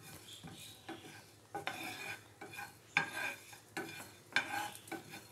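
Wooden spoon stirring and scraping whole coriander seeds around a dry nonstick frying pan, the seeds rattling and sliding over the pan surface in repeated strokes about one or two a second. The seeds are being dry-roasted on a low flame with constant stirring so they do not burn.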